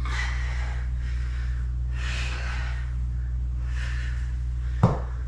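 A woman breathing hard through her workout reps, one audible breath about every two seconds, over a steady low hum. A single short thump comes near the end.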